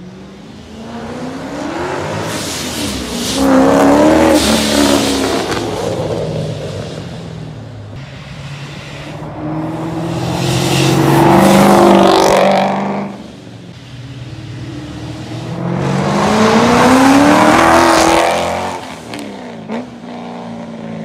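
Supercharged 2006 Ford Mustang GT V8 accelerating hard past three times, loud. On each pass the engine note climbs in pitch as it pulls and then dies away.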